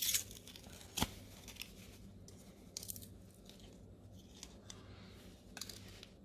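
Packaging of a new CR2032 coin-cell battery being opened by hand: crinkling, tearing and crackling, with a sharp snap about a second in.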